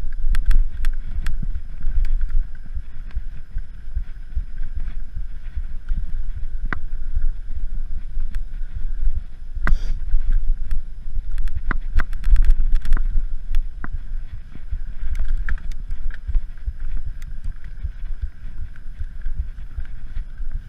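Mountain bike riding over rocky dirt singletrack: a steady low wind rumble on the microphone, with frequent sharp clicks and knocks as the bike jolts over rocks.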